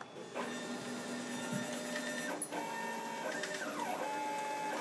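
Stepper motors driving a CNC router's gantry on a dry test run, with the router spindle switched off and the bit held above the work. They make a whine of several steady tones that start a moment in, then shift pitch in steps and glide up and down as the axes change speed and direction.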